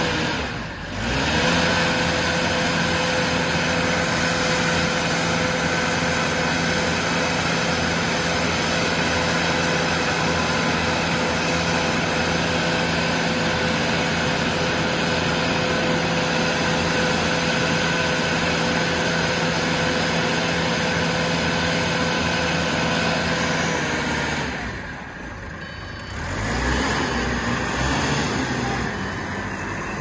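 Diesel engine of a self-loading concrete mixer running steadily at high revs, working the loading bucket and drum. About 25 s in it eases off for a couple of seconds, then picks up again as the machine moves off, fading near the end.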